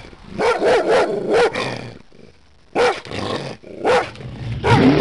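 A large dog barking aggressively: a quick run of about five barks, then three single barks spaced out.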